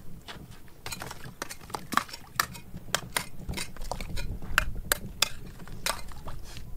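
Rapid, irregular clinking and knocking of hard objects, several sharp strikes a second, busiest through the middle.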